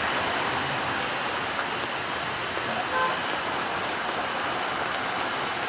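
Steady rain falling on surfaces, an even hiss without a break, with a brief faint tone about halfway through.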